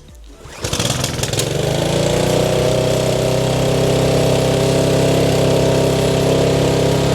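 Lawn mower engine starting about a second in, quickly picking up speed and then running steadily; it runs fine with its carburettor freshly cleaned.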